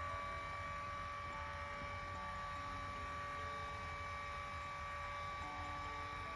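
Lourdes AX-HL168 massage cushion's motor and gear unit running with a steady low hum and a few faint high tones. It runs without the abnormal buzz, which was cured by adjusting the angle of the worn roller axle.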